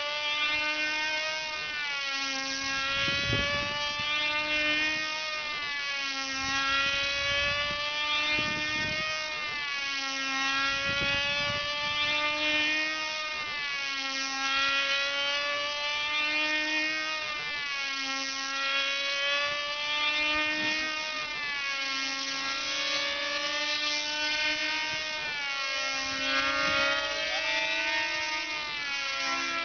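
Two control-line combat model airplanes' small two-stroke engines screaming at full speed, their pitch rising and falling about every two seconds as the planes circle the pilots on their lines.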